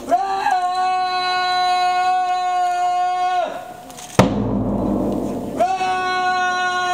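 Electric train's horn sounded for departure: two long steady blasts a few seconds apart, each preceded by a shorter, lower and rougher burst, the pitch sliding up briefly as each blast begins.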